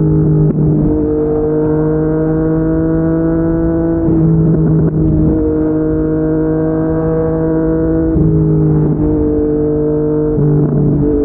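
Yamaha MT-09's three-cylinder engine through a Yoshimura R55 slip-on exhaust, under way at a nearly steady pitch. The note shifts and settles again briefly about half a second in, around four to five seconds in, around eight to nine seconds in, and near the end.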